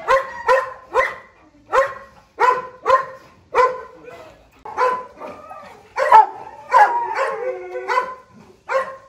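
Dogo Argentino barking over and over, sharp barks coming one or two a second, running into wavering, overlapping calls between about six and eight seconds in.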